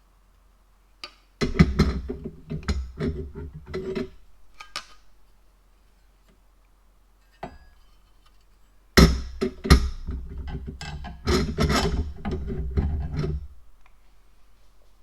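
A power drill-driver runs in two spells of a few seconds each, its motor hum mixed with rattling clicks.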